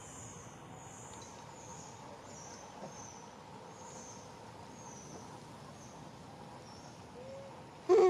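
Steady hiss of rain with short, high, falling chirps repeated about every second; near the end a macaque gives a sudden loud squeal that bends up and down in pitch.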